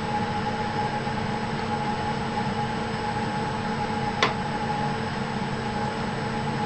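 Steady mechanical hum and hiss holding a few fixed tones, with a single sharp click about four seconds in.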